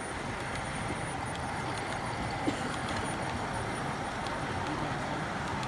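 Steady hubbub of a busy exhibition hall, with a few faint clicks and one short knock about halfway through.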